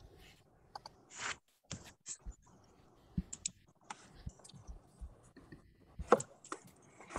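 Faint, irregular clicking of a computer mouse and keyboard, heard through a video-call microphone, as a screen share is being set up.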